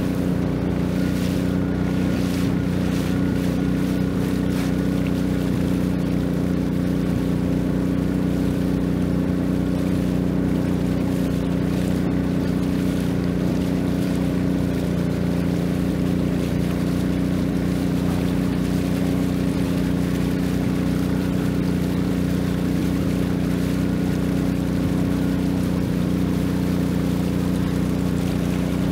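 Long-tail boat engine running steadily at a constant speed, its pitch and level unchanging.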